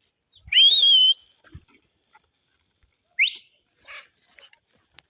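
A high whistle: one loud warbling note lasting about half a second, then a second short rising whistle a few seconds later.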